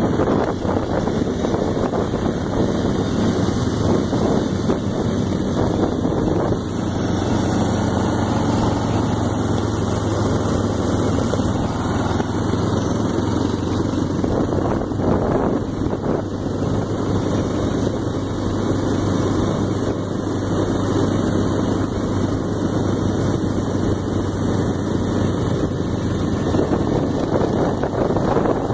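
Several quad ATV engines running steadily, mixed with wind rushing over the microphone.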